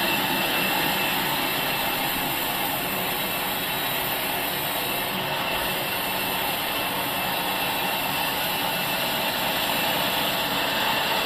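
Sawmill machinery running steadily: a continuous mechanical noise with a constant high whine.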